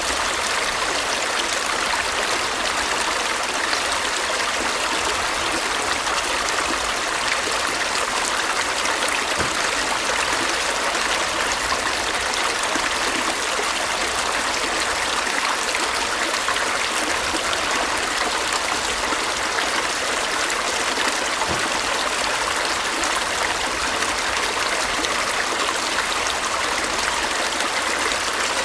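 A stream running and babbling over stones, a steady even rush of water.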